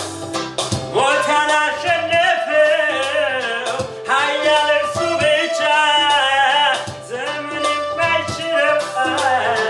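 A man sings an Amharic worship song (mezmur) in phrases of about three seconds each, accompanied by a Yamaha arranger keyboard playing with a steady beat.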